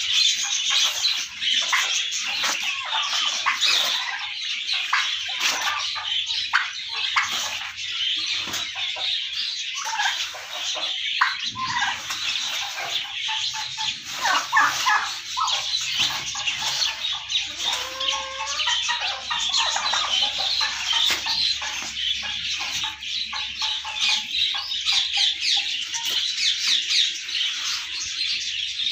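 A yard of domestic turkeys and chickens with other birds calling: a dense, continuous chatter of high chirps and squawks, with some lower, sliding calls around the middle.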